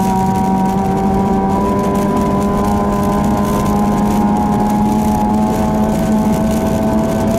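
Ford Fiesta 1.6 Sport rally car's 1.6-litre four-cylinder engine, heard from inside the cabin, held at high revs with its pitch slowly climbing, over steady tyre and road noise on a snowy stage.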